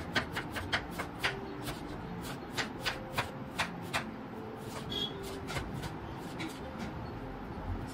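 Chef's knife chopping red onion on a wooden cutting board: quick, irregular knocks of the blade striking the board, about four a second, thinning out after about four seconds.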